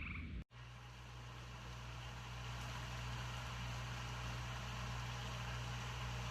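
A vehicle engine running steadily: a constant low hum under an even hiss of road or wind noise.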